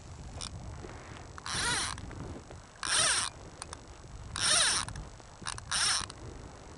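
Fly fishing line being retrieved: four short rasping bursts of about half a second each, spaced about a second and a half apart.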